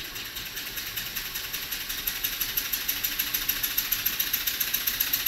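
Model Maudslay oscillating engine (9/16" bore, 1 1/2" stroke, cast-iron flywheel) running on compressed air, its exhaust puffing in a quick even rhythm over a hiss. The puffs speed up and grow louder about two seconds in as the air is opened up.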